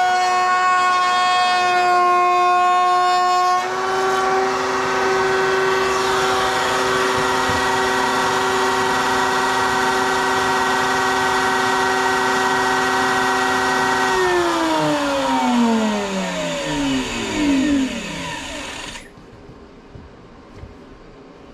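A woodworking power tool's motor running at speed with a steady whine, its pitch shifting a few seconds in. About two-thirds of the way through it is switched off and winds down over about five seconds, the whine falling steadily in pitch until it stops.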